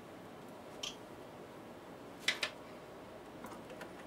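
Hands handling wiring and a plastic wire connector: a soft tick about a second in, then two sharp clicks close together about halfway through, and a few light ticks near the end.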